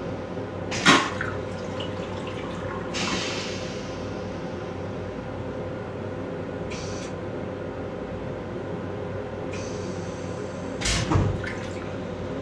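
Stainless steel toilet in an M7 commuter railcar flushing: rinse water hisses through the bowl in spurts. There is a sharp clunk about a second in and a heavier thump near the end, over the rail car's steady hum.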